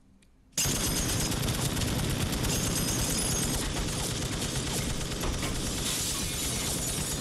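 Long unbroken burst of automatic machine-gun fire from an M60 on a remote-controlled rig in a car trunk, starting suddenly about half a second in and going on as a continuous rapid clatter.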